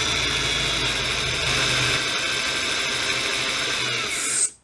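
Handheld electric drill running steadily at a constant whine as a small bit drills into the steel rib of a double-barrel shotgun. It stops suddenly near the end.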